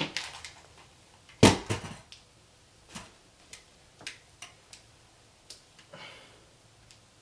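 Someone handling things: a knock about a second and a half in, then scattered light clicks and taps, a few a second at most.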